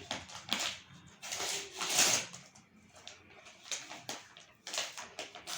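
A parcel's packaging being opened by hand: irregular rustling and tearing noises, loudest about two seconds in.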